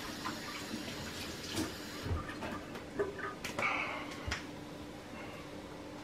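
Thick honey draining from a conical nylon strainer in a thin stream into a bucket of honey, a faint soft liquid pouring sound, with a few light knocks and handling sounds midway and a steady low hum.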